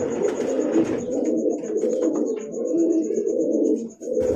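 Domestic pigeons cooing steadily, a young cock cooing as he drives his newly mated hen; the keeper reads the cooing as a sign that the driving is not yet tight. Near the end the cooing breaks off for a moment and there is a low thump.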